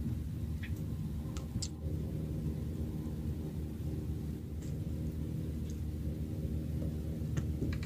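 Small stationary engine in the boat running steadily at idle, with a few faint clicks.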